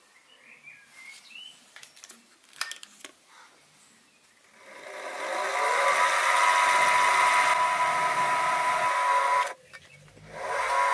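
Sieg SX2P mini mill's spindle motor starting about four and a half seconds in and running up to a steady high hum, turning the chuck-held drill; a few light clicks come before it. Near the end it cuts out suddenly and comes back on.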